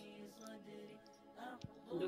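Faint background music with soft, sustained tones.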